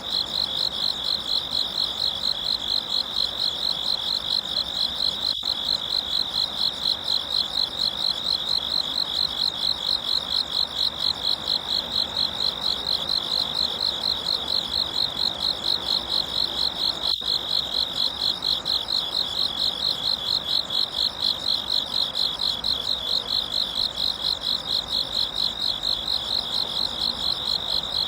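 An insect singing without a break: a loud, high-pitched, evenly pulsing trill at about three to four pulses a second.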